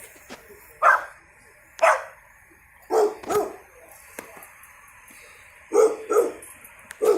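Dog barking: about seven short barks, some in quick pairs, with a pause of about two seconds in the middle.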